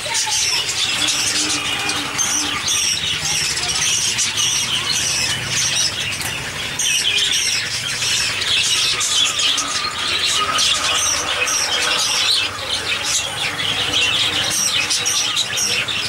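A flock of budgerigars chattering, with many quick, high, overlapping chirps and squawks that never let up.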